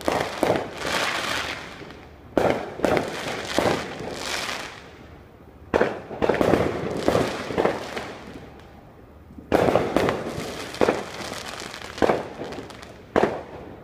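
Fireworks going off: a string of sharp bangs in clusters every couple of seconds, with quieter gaps between.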